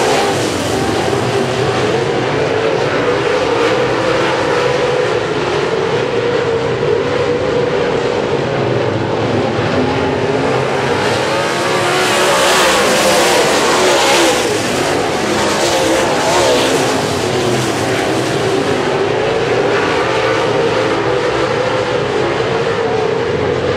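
A pack of dirt-track race cars racing around the oval, their engines a continuous loud din that swells louder about halfway through as the pack comes by.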